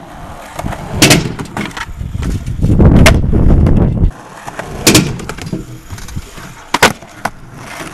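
Skateboard wheels rolling on concrete, with sharp clacks of the board hitting the ground and the ramp box, about one every two seconds and a quick double clack near the end.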